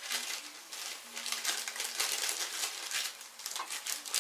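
Plastic snack bag crinkling as it is handled, a run of irregular sharp crackles and rustles.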